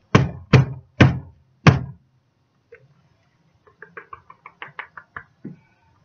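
Wooden soap loaf mold full of fresh soap batter banged down hard on the table four times, the usual way to settle the batter and knock out air bubbles. Then, about four seconds in, a quick run of light clicks.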